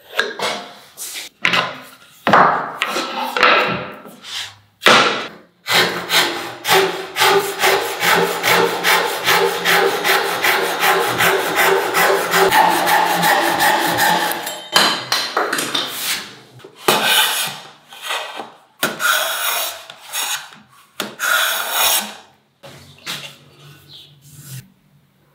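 Hand-tool woodworking: a few separate hand-plane strokes on wood, then a Japanese-style handsaw cutting a board in a fast, steady run of strokes for about eight seconds, then more single plane strokes, with a metal hand plane on a shooting board near the end.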